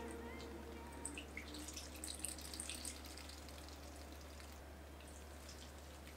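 Brine squeezed by hand out of salted, sliced daikon radish dripping and trickling into a glass bowl, as faint little plinks over the first three seconds or so.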